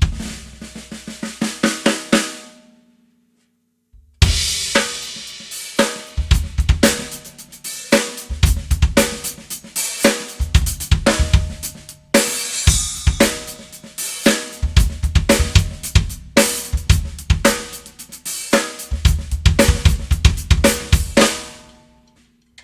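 Gas Custom 14x5 straight-wall aluminium snare drum, unmuffled with Remo Ambassador heads, played in a drum-kit groove with kick drum, hi-hat and cymbals. The snare rings with a clear pitch. A short phrase ends about two seconds in, and after a brief pause the groove plays on steadily until near the end.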